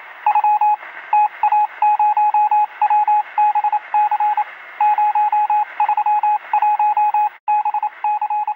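Loud electronic beeping in a single pitch, keyed on and off rapidly in irregular groups like Morse code, with a thin, radio-like tone.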